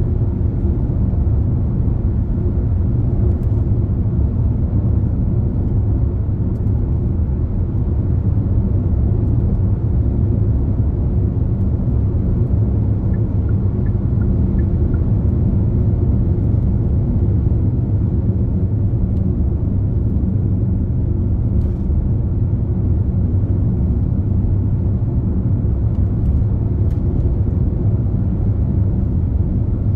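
Steady low rumble of a car driving at road speed: tyre, road and engine noise with no change in pace.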